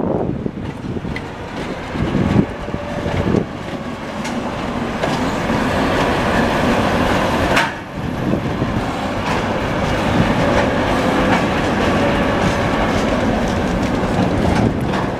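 2TE116 twin-section diesel locomotive passing close by with a freight train, its diesel engine running, followed by tank wagons with wheels clacking over the rail joints. The sound grows louder as the locomotive comes alongside.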